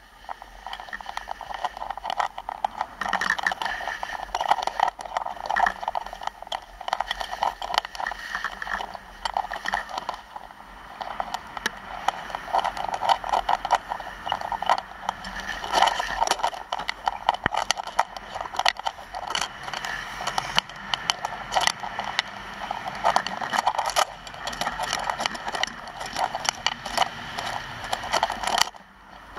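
Skis scraping over hard-packed groomed snow during a downhill run, a continuous rasping hiss that rises and falls in loudness with the turns.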